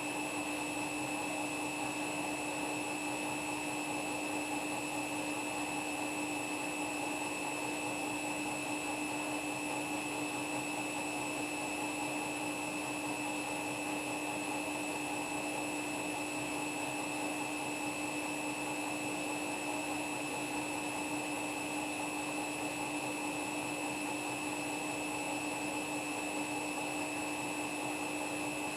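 Washing machine spinning at a steady high speed with footballs in the drum: a constant motor whine over the rush of the drum, with no change in pitch and no knocks.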